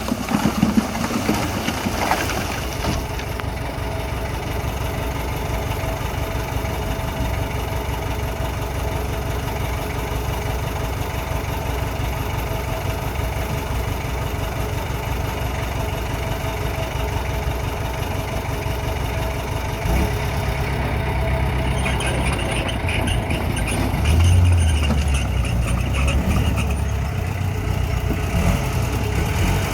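Heavy diesel engine of earthmoving equipment running steadily. The low rumble swells briefly about two thirds of the way through.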